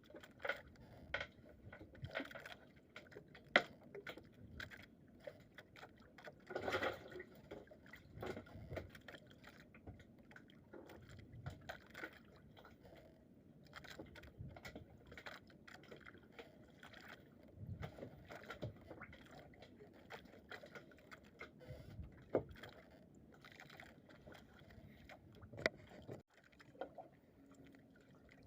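Faint, irregular small knocks, clicks and rustles, as of hands handling gear close to the microphone.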